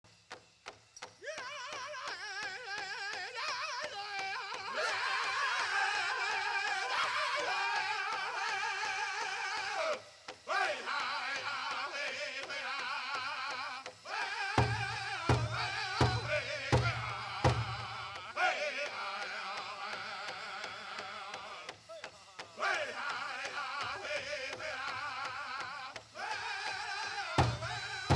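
Powwow drum group singing a chicken dance song: high, wavering voices in unison over a steady big drum. The song breaks off briefly near ten and fourteen seconds, then strong, louder drum strokes come about one every 0.7 s for some three seconds, and again near the end.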